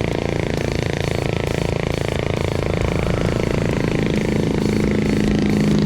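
A motor vehicle engine running over a steady rumble of road and wind noise, its pitch rising and getting a little louder in the last couple of seconds.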